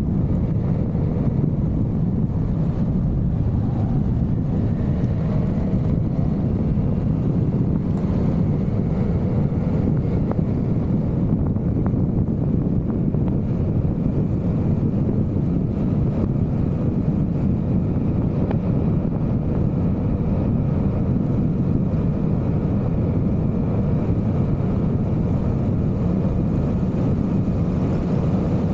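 Vespa GTV 300 scooter's single-cylinder engine running at a steady cruise, mixed with constant wind rush on the microphone while riding.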